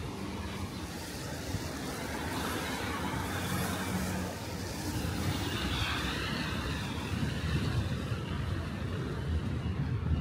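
City road traffic: motor vehicles running close by as a steady rumble, swelling around the middle as one passes.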